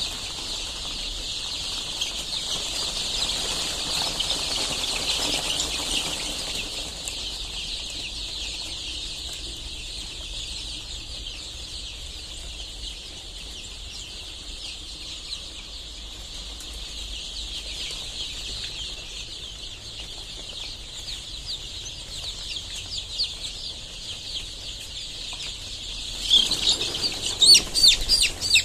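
A large flock of young chicks peeping together in a dense, continuous high-pitched chorus. Near the end a few individual chirps ring out louder and closer.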